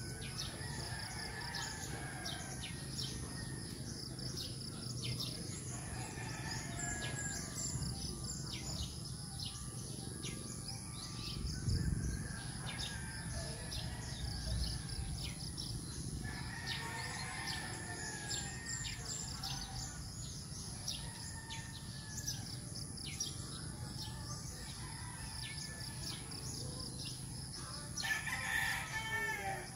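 Rural morning birdsong: many small birds chirping throughout, with a rooster crowing near the end. There is a brief low rumble about twelve seconds in.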